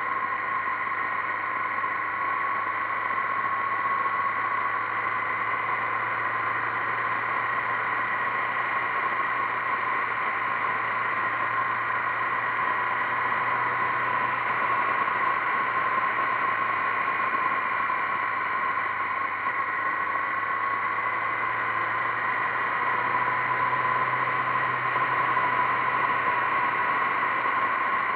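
Motorcycle cruising at a steady speed on an open road: a constant engine drone with a steady whine and rushing wind noise, heard through a camera mounted on the bike's fairing. The engine note swells slightly a couple of times.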